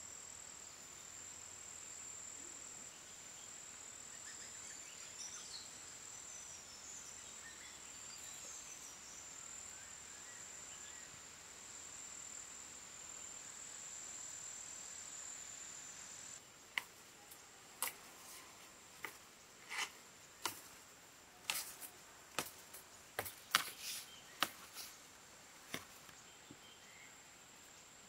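A high, steady insect drone fills the woods. After a cut about 16 seconds in, a run of sharp, irregular snaps follows, about one a second, as ramie leaves are plucked from their stalks by a gloved hand, with the insect drone still behind them.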